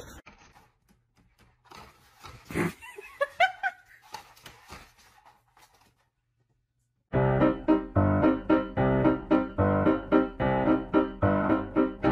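Faint knocks and a short rising squeak, then a brief silence. About seven seconds in, loud piano-like keyboard music starts, with quick, evenly repeated notes.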